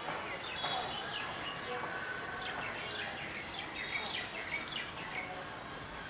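Several birds chirping: many short, high calls overlapping, several sliding down in pitch, over a steady background hiss.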